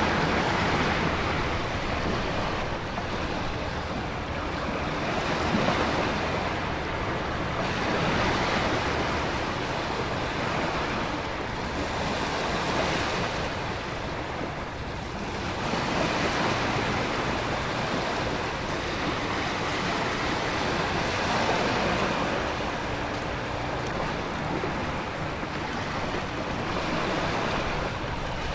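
Storm ambience: a steady hiss of heavy rain and wind, with ocean surf swelling and falling away every few seconds.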